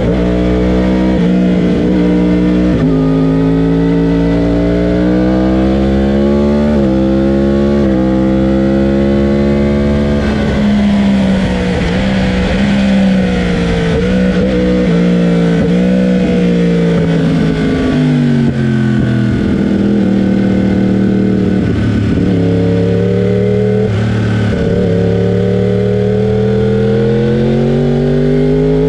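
Race motorcycle engine under hard throttle, its pitch climbing through the revs and dropping back at each upshift. Past the middle it falls away through downshifts into a slower corner, then pulls up through the gears again near the end, with a steady rush of noise under it.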